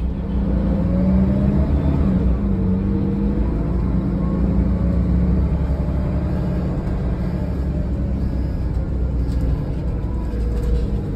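Mercedes-Benz O500LE bus running under way, heard from inside the cabin: a steady low engine and road rumble with a hum that climbs slightly in pitch about a second in and fades after about five seconds.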